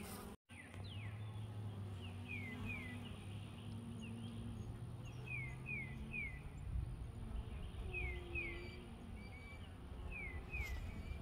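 Honeybees humming around an open hive, a low wavering drone, while a bird repeats short falling whistles in twos and threes every few seconds. The sound cuts out completely for a moment just after the start.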